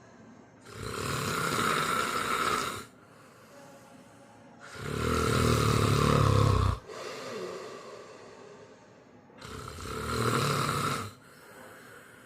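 A person snoring: three loud snores about four to five seconds apart, each lasting about two seconds, the middle one the loudest and deepest.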